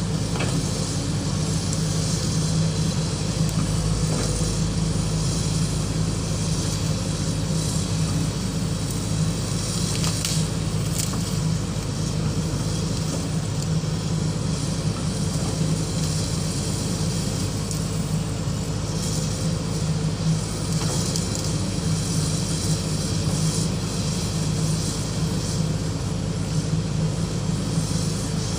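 Excavator's diesel engine running steadily, with a couple of brief knocks about ten seconds in.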